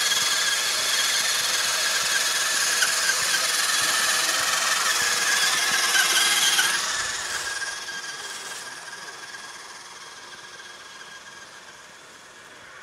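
Electric radio-controlled scale off-road car's motor and gearbox whining steadily as it drives, then fading away about two thirds of the way through.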